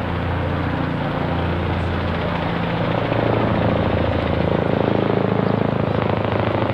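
A steady engine drone that grows louder about three seconds in, where a rapid throbbing comes in.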